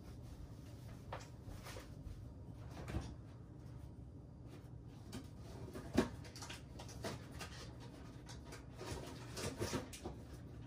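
Refrigerator door opened and things inside handled: scattered clicks, knocks and rattles of containers, the sharpest knock about six seconds in and a cluster of rattles near the end, over a low steady hum.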